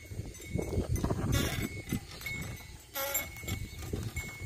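A pair of bullocks pulling a wooden plough through dry field soil, with uneven scuffing and rustling, and a short call about three seconds in.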